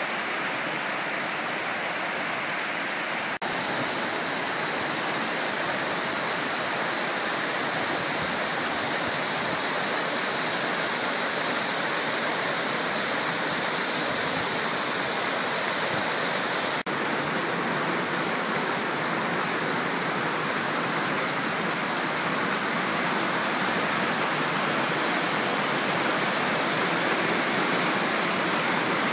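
Mountain creek pouring in small waterfalls over rock into pools: a steady rush of falling, splashing water, with a faint click about three seconds in and again about seventeen seconds in.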